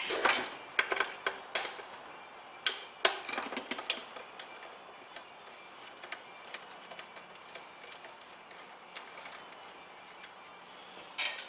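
Clicks and light taps of a screwdriver working the screws of a static phase converter's sheet-metal case, with small metal-on-metal knocks. They come thick in the first few seconds, then only now and then.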